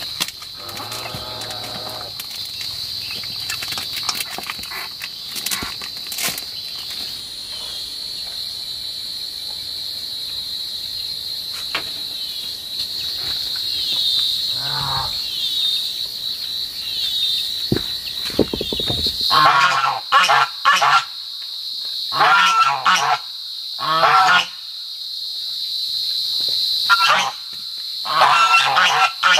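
A steady, high-pitched drone of insects runs throughout. About two-thirds of the way in, geese start honking loudly, call after call, and keep on to the end.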